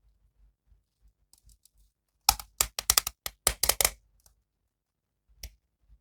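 Plastic packaging or action-figure parts handled by hand: a quick run of sharp plastic clicks and crackles about two seconds in, lasting under two seconds, then a single click near the end.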